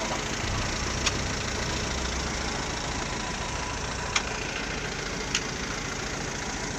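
Canter truck's diesel engine running steadily, with a few short sharp clicks about one, four and five seconds in.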